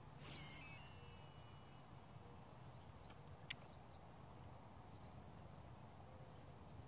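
Near silence: a brief faint whir of a fishing reel paying out line as a cast goes out, then a faint steady background and a single sharp click about three and a half seconds in.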